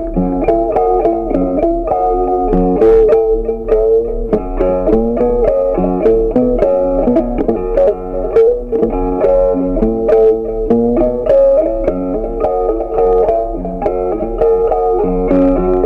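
Background music: a plucked guitar tune with bass, a run of short notes at a steady pace.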